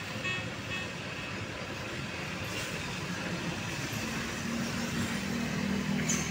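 Heavy tanker truck's diesel engine growing louder as it drives up and passes close by over steady road traffic noise, its engine hum coming in about four seconds in. A brief high squeal sounds near the end.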